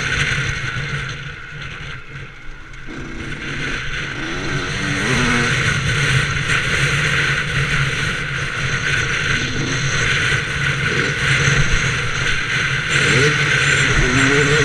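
Yamaha YZ125 two-stroke engine revving up and down while the bike rides a dirt track, with wind noise over the microphone. The engine eases off about two seconds in, then picks up again.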